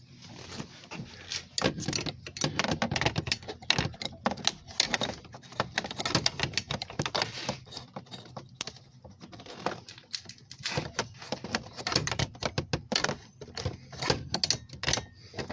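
Rapid, irregular clicking and rattling of a 10 mm socket being handled and worked onto a bolt by hand.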